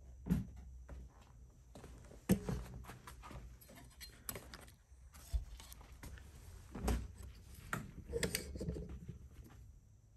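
Handling noise of tube-amp kit parts, likely the transformers being picked up and set down on the bench: irregular knocks, clicks and light rattles, the sharpest about two seconds in and again about seven seconds in.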